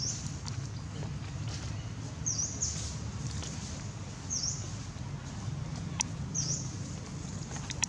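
A bird calling again and again: short, high chirps that dip and rise in pitch, about one every one to two seconds, over a steady low rumble. A single sharp click about six seconds in.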